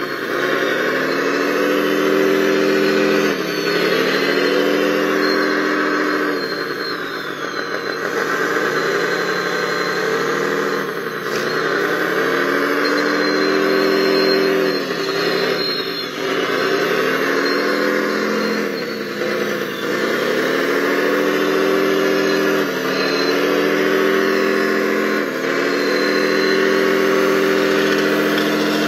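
Radio-controlled model wheel loader running as it scoops sand: a steady mechanical whine whose pitch drops and climbs back again every few seconds.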